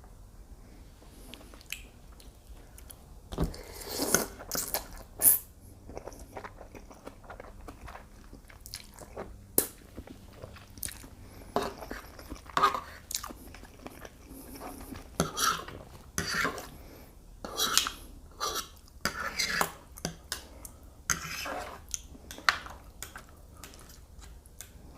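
Close-miked chewing and eating of shrimp, mussels and fettuccine, in irregular bursts with a few sharp clicks.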